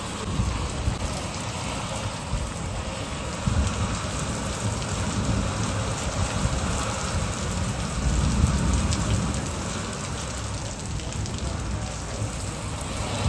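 Heavy rain pouring in a storm, a steady dense hiss of falling rain and drops, with wind gusting in low swells that rise and ease every few seconds. The storm is loud under the overhead shed roof as the wind blows.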